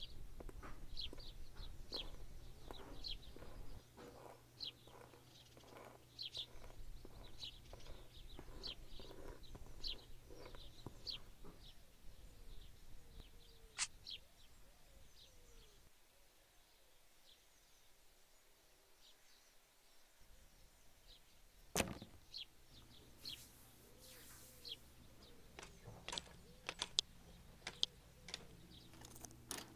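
Birds chirping over a steady low hum. A sharp click comes about two-thirds of the way through, and a few handling clicks near the end as a storm door is opened.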